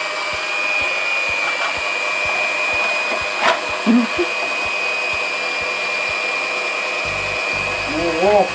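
Electric hand mixer running steadily, with a constant high whine over its motor noise.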